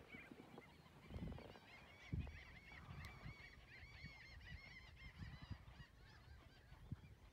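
Faint calls of a distant flock of birds: a quick run of short notes that rise and fall in pitch, starting about two seconds in and dying away after a few seconds. A couple of low dull thumps come near the start.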